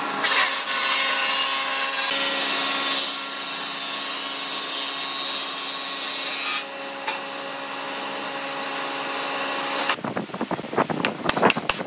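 A steady machine whir with a hum runs for about ten seconds, then stops suddenly. It gives way to sharp wooden knocks and clatter as pine boards are set down and shifted on a wooden workbench.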